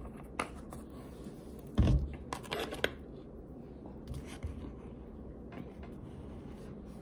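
Hands handling a plastic cornstarch canister: a knock about two seconds in, then a brief crackling rustle, and a few lighter taps later.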